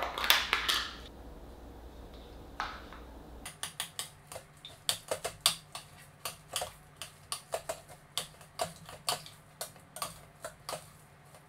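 A spoon stirring thick risotto in a stainless steel Instant Pot inner pot, sped up: a quick, uneven run of clicks and knocks of the spoon against the pot's side, with a brief louder handling noise at the start.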